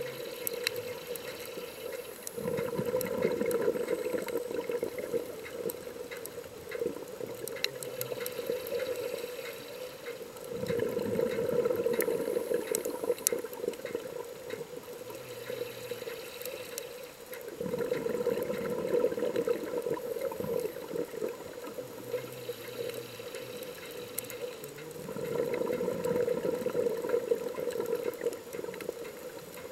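Underwater scuba breathing: a diver's exhaled bubbles gurgle out of the regulator four times, about every 7 to 8 seconds, each burst lasting a few seconds. Between the bursts there is a steady underwater hiss with scattered sharp clicks.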